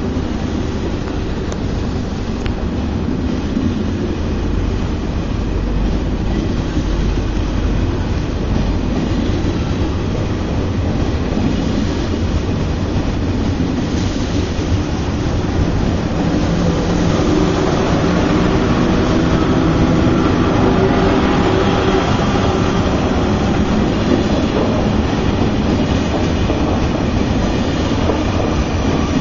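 TGV high-speed trainset passing close along a station platform: a steady rolling rumble of wheels on rails, growing louder about two-thirds of the way through.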